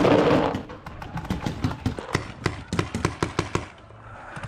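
Paintball markers firing in scattered, irregular sharp pops across the field, with a brief rush of noise at the very start.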